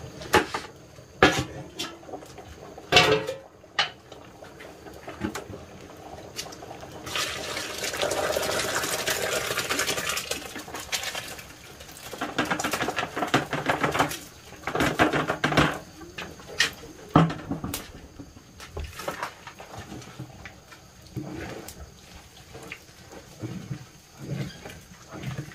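Water poured from a plastic scoop into a large metal cooking pot over a wood fire, in a long pour and then a few shorter ones. Before the pouring, the metal lid and pot clank a few times, and small knocks follow as the pot is stirred with a stick.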